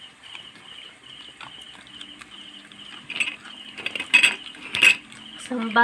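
Metal spoon clinking against a glass bowl, a few sharp clinks about three to five seconds in.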